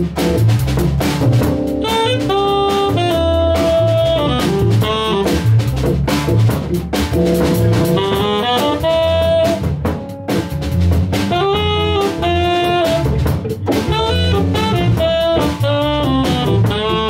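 Small jazz band playing live: a saxophone carries a melodic line over drawbar organ, archtop guitar and drum kit keeping a steady beat.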